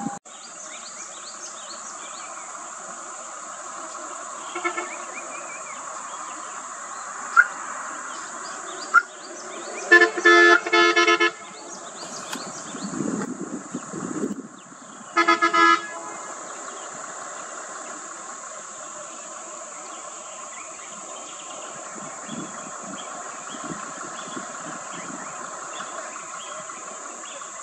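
A road vehicle's horn honks in a quick run of short toots about ten seconds in, then once more about five seconds later. A steady high insect drone runs underneath.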